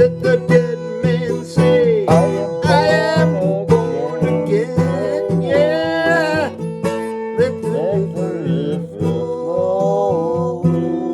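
Band music with plucked strings under a lead melody that slides and wavers in pitch.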